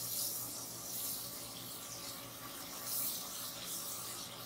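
Ginger-garlic paste and browned onions sizzling in hot oil in a pot while being stirred with a silicone spatula: a steady, faint hiss.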